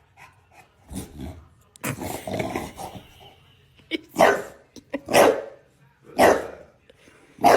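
A dog barking: four loud barks about a second apart in the second half, after a longer, rougher sound about two seconds in.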